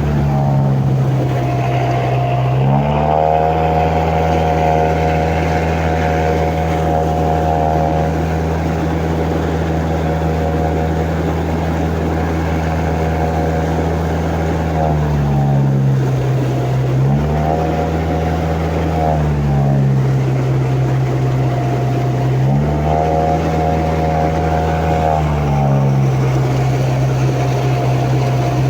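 The amphibious all-terrain vehicle's 109 hp Toyota engine running steadily, its pitch dropping to a lower level and rising back four times: once at the start and three more times in the second half.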